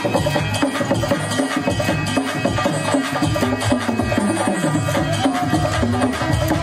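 Loud Hindi devotional dance music with fast, driving drums and percussion, played over loudspeakers.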